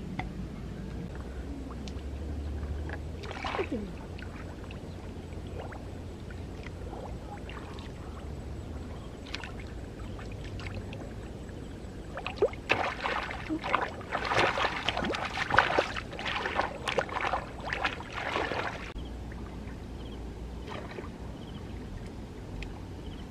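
Shallow water splashing and sloshing in a run of irregular bursts as hands grab for a fish in muddy lake water. The bursts start about halfway through and last some six seconds.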